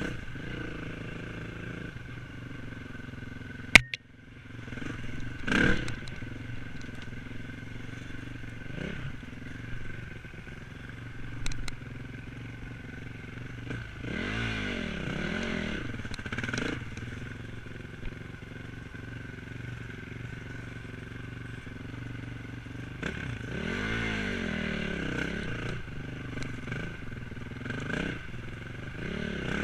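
Enduro motorcycle engine running as it is ridden, revving up and back down a couple of times, with clattering. A single sharp knock about four seconds in.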